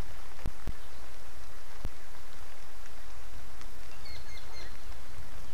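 Steady rain falling, with a few sharp ticks of single drops striking close to the microphone in the first two seconds. A bird chirps briefly about four seconds in.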